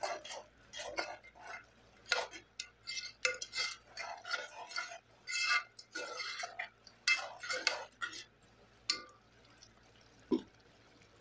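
A ladle stirring thick tomato charu in a metal pot: irregular scraping and clinking strokes against the pot for about nine seconds, then the stirring stops, with one brief knock near the end.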